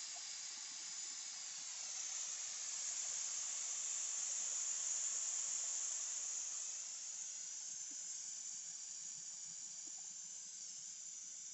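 Pressurised nitrogen venting out of an air conditioning system through the yellow hose of a refrigerant manifold gauge set after the pressure test. It is a steady hiss that swells a few seconds in, then slowly tapers off as the pressure bleeds down.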